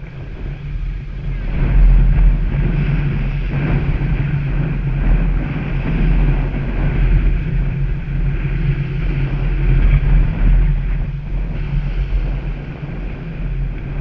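Small waves breaking and washing up the sand at the water's edge, swelling and ebbing, with wind buffeting the microphone in a steady low rumble.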